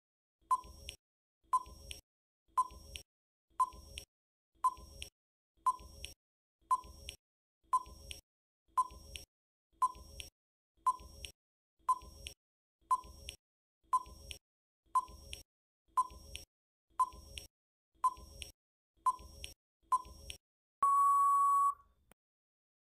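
Countdown timer sound effect: about twenty short beeps, one a second, then one long beep of about a second near the end as the timer runs out.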